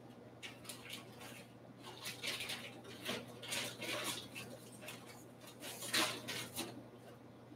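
Trading cards and their packaging being handled on a table: a series of short, irregular rustles and light clicks, loudest about six seconds in.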